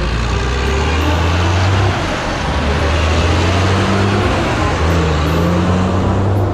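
Heavy diesel truck engine running steadily at a low, even drone.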